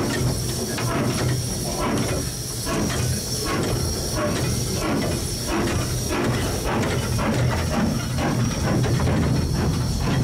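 Southern Railway S15 class 4-6-0 steam locomotive No. 847 heard from its footplate: a steady hiss of steam over a low rumble, with faint regular beats about twice a second.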